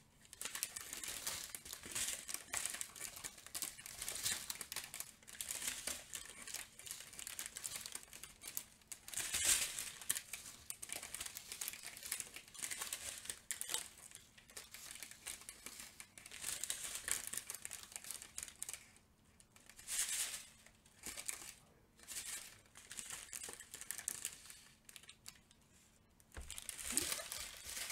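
Small plastic bags of diamond painting drills crinkling and rustling as they are picked up and handled, with brief pauses.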